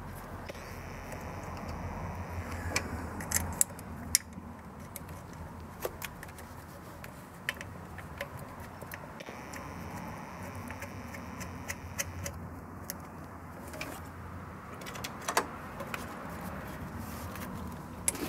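Scattered light metallic clicks and clinks as hands handle the coolant outlet housing on a car engine, over a steady low hum.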